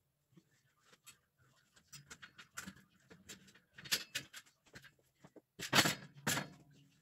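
Laundry being handled at a metal clothes airer: fabric rustling, with small clicks and rattles, and a few louder rustles near the end as the clothes are gathered up.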